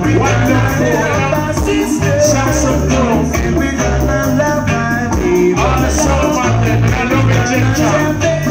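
Reggae music played loud through a concert PA, with a heavy, repeating bass line and a singer's voice over it.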